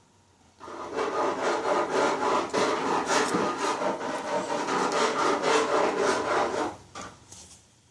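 Rapid back-and-forth scraping, about three strokes a second, on a part of a disassembled Mazda 13B rotary engine; it starts about half a second in and stops shortly before the end.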